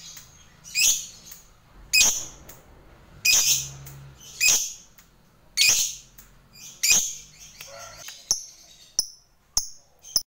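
Lovebird calling: loud, shrill chirps repeated about once a second, turning into shorter, quicker calls near the end.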